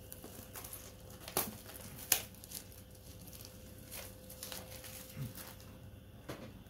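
Packaging being handled during an unboxing: plastic wrapping crinkling, with scattered sharp clicks, the two loudest about a second and a half and two seconds in.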